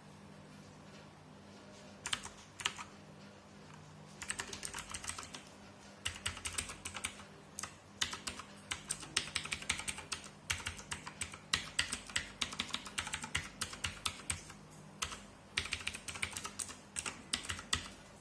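Typing on a Redragon K551A Vara mechanical keyboard with clicky blue switches: a few single key clicks, then fast runs of typing from about four seconds in, broken by short pauses.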